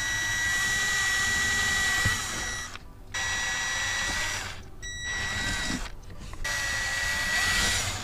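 Cordless drill with a 3/32-inch bit drilling into a plastic gas pedal. The motor whines steadily in four runs broken by short pauses.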